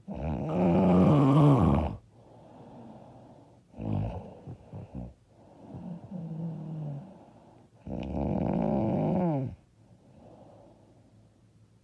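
A woman snoring loudly, with snores of one to two seconds each and quieter breaths in between.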